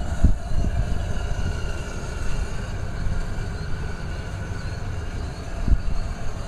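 Gasoline pump running as it fills a vehicle's tank: a steady low rumble with a faint, even whine above it.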